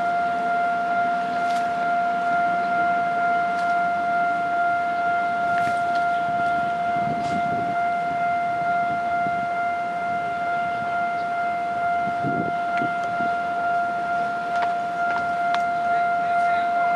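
Level-crossing warning alarm sounding one steady high tone, over the low rumble and occasional wheel clicks of Taiwan Railway Chu-Kuang Express passenger coaches rolling past.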